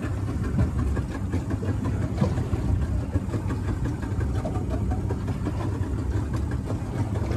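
Outboard motor of a small fishing boat running steadily at low trolling speed, a continuous low drone, with water and wind noise around the hull.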